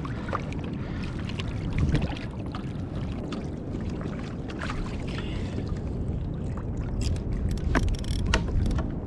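Water sloshing around a kayak under a steady low rumble, with scattered light knocks and clicks on the hull and gear, a few sharper ones near the end.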